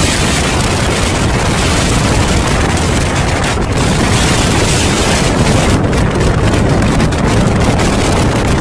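Strong sandstorm wind blowing over the microphone: a loud, steady rush with heavy low buffeting.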